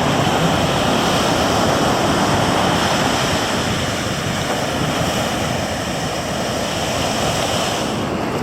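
Ocean surf breaking and washing ashore: a steady rushing noise.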